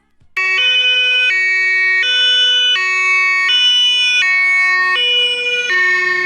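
Two-tone emergency-vehicle siren of the German fire-engine kind (Martinshorn). It starts suddenly and loudly about half a second in, then alternates steadily between a low and a high note, each held for under a second.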